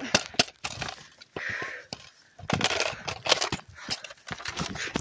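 Irregular knocks and rustling from a hand-held phone being jostled and handled while it is carried quickly across grass.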